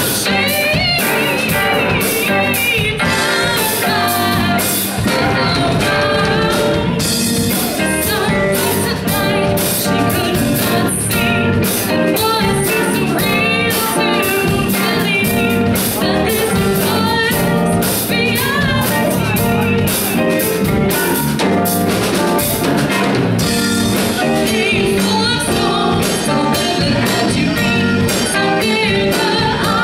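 Live rock band playing: a woman sings lead over electric guitar, bass guitar and a drum kit with steady cymbal strokes.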